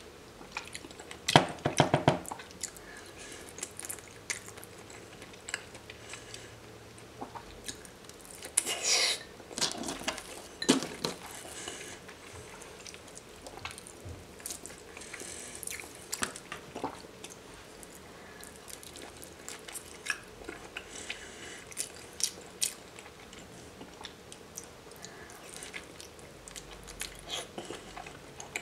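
Close-miked mouth sounds of raw salmon sashimi being bitten and chewed, coming in scattered clusters of short smacking clicks, loudest near the start and again around ten seconds in.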